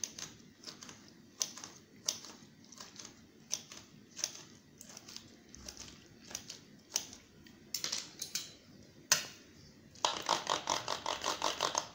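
Knife blade clicking against a tile cutting board as roasted green peppers are sliced, a few irregular cuts a second. About ten seconds in, it turns into a quick run of chops, about ten a second, as roasted eggplant is chopped with a larger knife.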